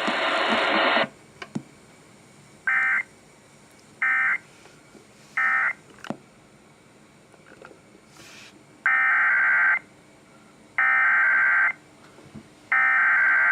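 Emergency Alert System SAME data bursts: three short bursts of buzzy two-tone digital squawk marking the end of the message, then after about three seconds three longer bursts, the header of the next alert.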